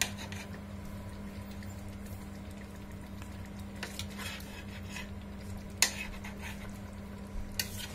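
Metal spoon stirring a thick stew in a stainless-steel pot, with a few sharp clinks of the spoon against the pot, the loudest about six seconds in. A steady low hum runs underneath.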